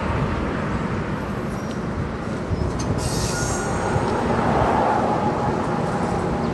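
Train of bilevel passenger cars rolling past close below, a steady rumble and clatter of wheels on rail, with a brief high-pitched squeal about three seconds in.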